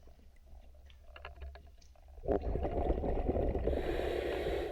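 Underwater breathing sounds: a diver's exhaled breath bubbling out of the regulator, starting about two seconds in, with a hiss joining near the end. Before it come a few faint underwater clicks.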